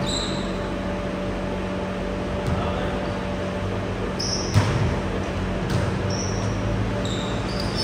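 Indoor volleyball game: a steady hall hum with a few short high squeaks and one sharp ball hit about four and a half seconds in.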